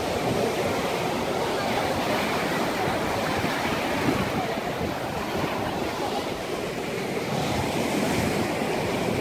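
Sea surf breaking and washing over a rocky shore platform, a steady rush of waves.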